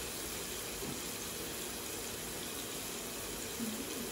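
Chopped onions frying in oil in a pan, a steady sizzle.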